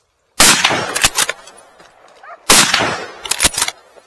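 Two shots from a scoped bolt-action hunting rifle, about two seconds apart, each trailing off in an echo across the valley.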